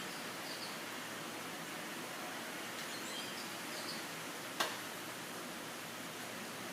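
Steady outdoor background hiss with a few faint, short, high chirps, and one sharp click about two-thirds of the way through.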